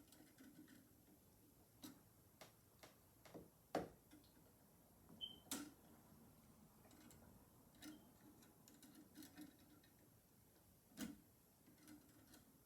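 Faint, scattered clicks and taps of a screwdriver and wires being handled at an electrical light switch box, a few sharper ticks among them.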